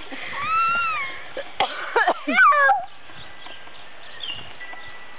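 A young boy's frightened, high-pitched whimpering cries: one drawn-out squeal that rises and falls in the first second, then a few short wavering cries about two seconds in, with a sharp click between them.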